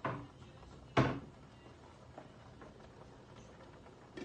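Two hard knocks about a second apart, the second one louder, each followed by a short ring.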